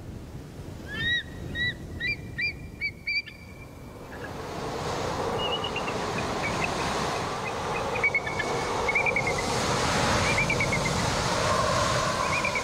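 A string of short, high chirping bird calls, then a steady rushing noise like wind that swells from about four seconds in, with more chirping calls over it.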